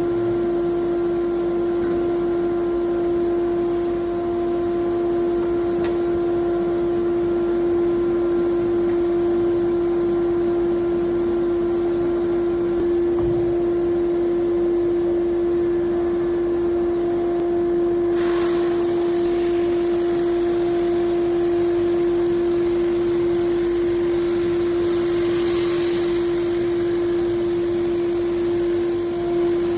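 NOVA 56CA drum sander's electric motor running steadily with a constant whine. About 18 seconds in, a broad hiss joins it and continues to the end.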